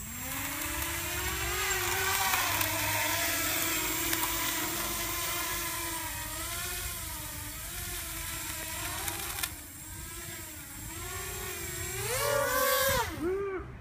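Emax Nighthawk 250 racing quadcopter's four brushless motors and propellers whirring. The whine spins up at the start and wavers in pitch with the throttle. It drops back about two-thirds of the way through, then rises and swoops sharply in pitch near the end as the quad lifts off.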